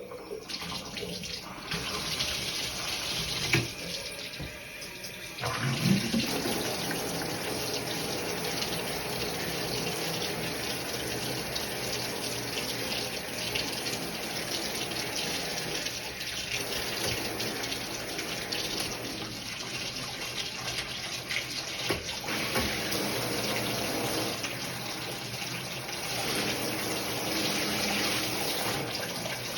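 Water running steadily from a shower head, with a couple of short knocks in the first few seconds.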